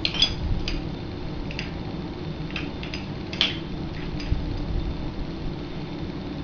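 Irregular light metallic taps and clinks of hand tools against the steel parts of a transaxle while a broken shift key is worked loose, about nine in the first four and a half seconds and the sharpest about three and a half seconds in, over a steady low hum.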